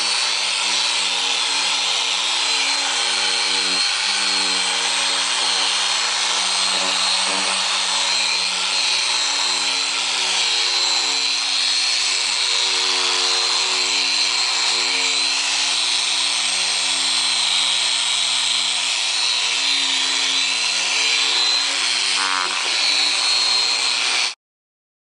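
Porter-Cable variable-speed polisher running at high speed with a polishing pad on a headlight lens: a steady motor whine that stops suddenly near the end.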